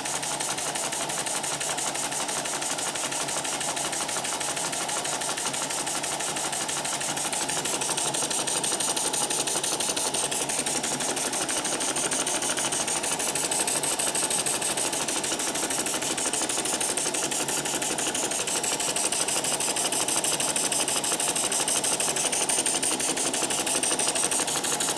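Small model horizontal steam engine running on live steam, a rapid, even chuffing of exhaust beats over a constant hiss. The hiss is steam escaping from leaks around the steam chest, whose cover bolts have lost most of their threads.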